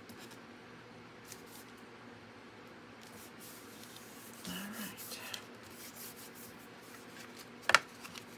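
Hands pressing and smoothing glued heavy cardstock panels onto a card base: soft paper rubbing and rustling that picks up about halfway through, with one sharp tap near the end as the card is handled.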